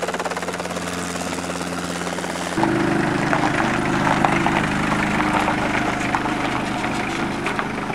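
Helicopter running, a steady engine whine over a fast, even rotor flutter; about two and a half seconds in, the sound jumps louder and shifts in pitch.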